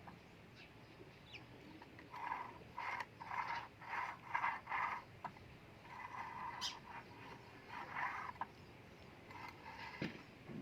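A series of rhythmic strokes, about two a second, of a hand tool working metal, pausing briefly and resuming, with a single sharp tick in the middle.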